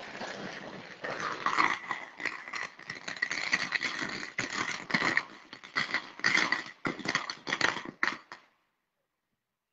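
A string of firecrackers going off in rapid, irregular bangs and crackles, cutting off abruptly about eight and a half seconds in.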